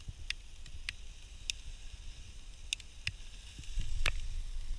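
Sparklers fizzing as they are lit, with a handful of sharp crackling clicks scattered through.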